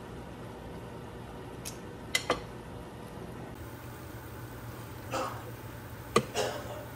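Sweet potato balls deep-frying in hot oil in a stainless steel pot, a steady sizzle over a low hum. It is broken by a few sharp clicks and clinks of utensils against the pot: two close together about two seconds in, and more near the end.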